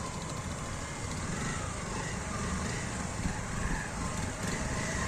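Motorcycle engines running steadily at low revs, with faint distant voices.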